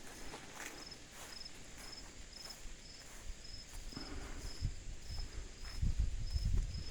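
A cricket chirping steadily, about two short chirps a second, with footsteps and low thumps about four seconds in and again near the end.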